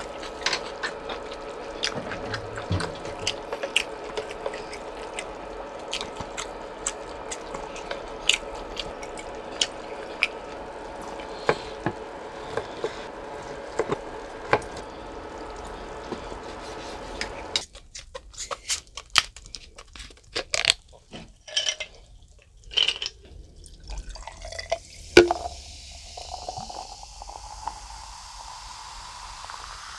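Close-up eating sounds of boiled pork being chewed: many wet clicks and smacks over a steady background hum. About two-thirds of the way in the hum stops suddenly and a few louder clicks follow. Near the end liquid is poured, rising in pitch as the vessel fills.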